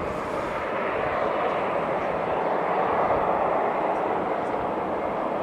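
Boeing 747-400's four General Electric CF6 jet engines running, a steady jet noise that swells slightly about halfway through.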